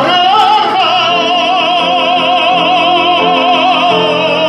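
A classically trained voice holds one long note with a wide, even vibrato over piano accompaniment.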